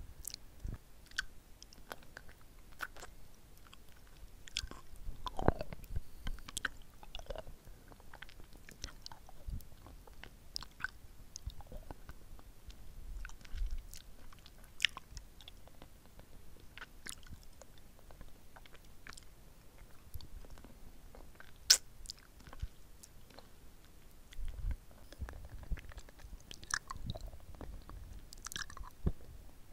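Mouth sounds of eating a hard-candy lollipop right at a microphone: scattered wet clicks, lip smacks and sucking, with one sharp click a little past the middle.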